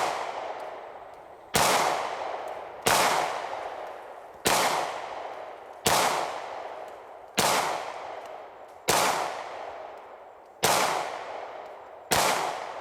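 Beretta 92FS 9mm pistol firing SIG Sauer 124 grain jacketed hollow points in slow, steady single shots, about one every one and a half seconds. Eight shots, each trailing off in a long echo before the next.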